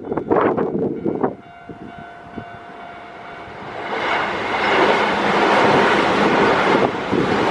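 Keio Line electric trains at a level crossing: wheels knock over the rail joints at first, then after a quieter lull a train's rushing noise builds about four seconds in and stays loud. Faint steady alarm tones of the crossing sound underneath.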